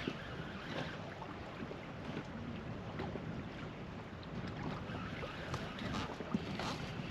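Wind on the microphone over water lapping against a boat, with a few faint scattered ticks.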